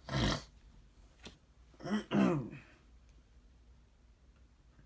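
A man clearing his throat: a short rough burst at the start, then a voiced "ahem" about two seconds in. A faint click sounds between them.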